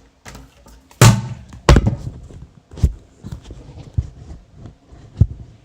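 Small plastic bottles partly filled with water being flipped and landing with hollow knocks on a hard bathroom surface: about five thuds, the two loudest in the first two seconds.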